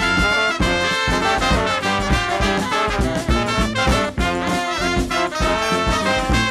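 Background music: an upbeat swing tune led by brass, trumpet and trombone, over a steady beat of about two beats a second.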